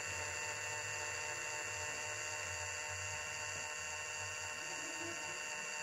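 Small electric motor humming steadily, with a thin high whine over a low hum.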